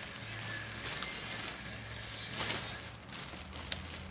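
Plastic packaging crinkling and rustling as it is handled, with a louder crackle about two and a half seconds in and a sharp click near the end.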